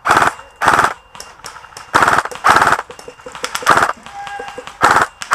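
Suppressed VFC HK416 airsoft electric rifle firing six short full-auto bursts, each a rapid rattle of shots lasting a fraction of a second, with gaps of about half a second to a second between them.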